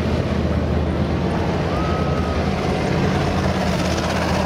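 Heavy vehicle engine sound effect running steadily, a low rumble. A brief faint high tone comes in about two seconds in.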